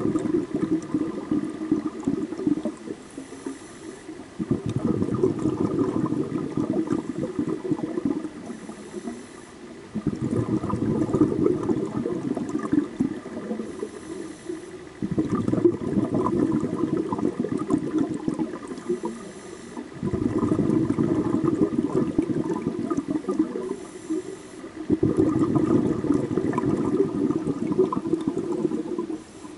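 Scuba regulator breathing heard underwater: six long bubbling exhalations of about four seconds each, roughly every five seconds, with a short faint hiss of inhaling through the regulator in each gap.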